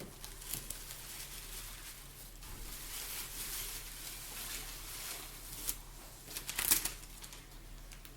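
Packaging crinkling and rustling as items are unwrapped by hand, in irregular crackles, with a sharper burst of crackling about two-thirds of the way through.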